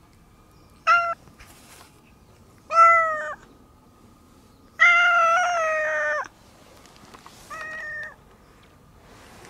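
Brown tabby-and-white cat meowing four times: a short meow about a second in, a louder one near three seconds, a long drawn-out meow of about a second and a half at five seconds, and a quieter short one near the end.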